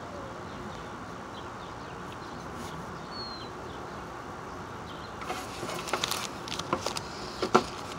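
Steady outdoor ambient hiss with a single short bird chirp about three seconds in. From about five seconds, a run of clicks and knocks from handling the pencil, paper and glass table, the loudest near the end.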